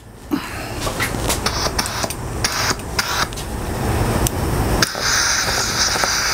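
Clicks and knocks as the air hose is handled and coupled to a Central Pneumatic air die grinder. About five seconds in, a steady hiss of air through the grinder begins as its throttle is opened. The grinder runs weakly and is not turning fast.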